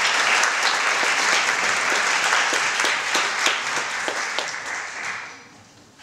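Audience applauding, with many individual claps, dying away about five seconds in.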